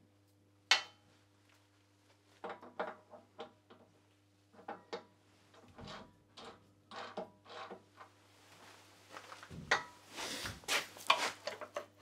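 Wood lathe turning pine: a turning tool cuts the spinning wood in short, separate strokes over the steady hum of the lathe motor, the cuts coming thicker and louder near the end.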